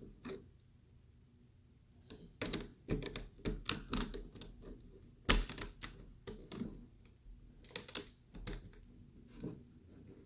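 LEGO plastic pieces clicking and clattering as they are handled and fitted together: an irregular string of sharp clicks, starting about two seconds in, the loudest about five seconds in.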